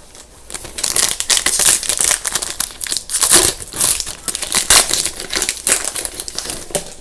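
Foil trading-card pack wrapper crinkling as it is torn open and handled, a dense run of quick crackles.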